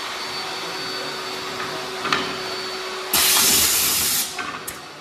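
Workshop machinery hums steadily, with a click about two seconds in. About three seconds in, a loud hiss of compressed air lasts just over a second, then tails off.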